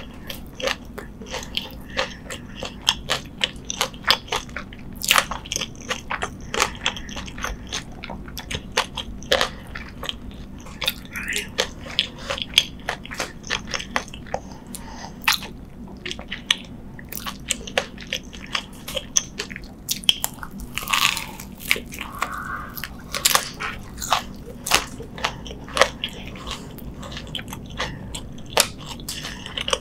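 Close-miked chewing and crunching of a fried, breaded corn dog: a dense, irregular run of crisp crackles and mouth clicks as the crust is chewed.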